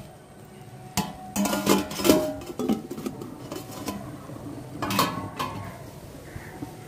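Metal cookware clattering: a perforated steel skimmer knocking and scraping in a steel pot of biryani rice, and an aluminium plate lid being handled and set over the pot to seal it for dum cooking. A strike about a second in, a quick run of clanks just after, and two more near the end.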